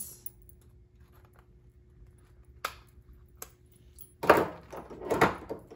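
Metal spiral binding coil being pulled and worked out of a notebook's punched holes: two light clicks, then loud scraping and rattling of the wire against the paper from about four seconds in.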